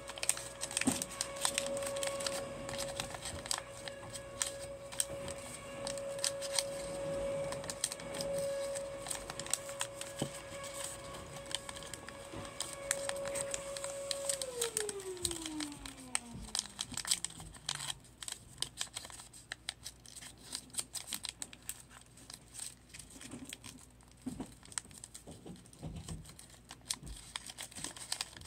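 Origami paper being folded and creased by hand: crinkling and rustling with many small clicks. A steady hum runs under it through the first half, then slides down in pitch and fades out about halfway through.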